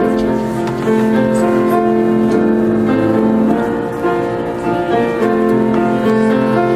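Instrumental offertory music on a keyboard instrument, slow held chords that change every second or two.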